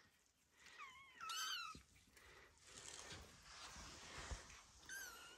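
Four-week-old Ragdoll kittens mewing faintly: short, high-pitched mews about a second in and again near the end, with soft rustling between.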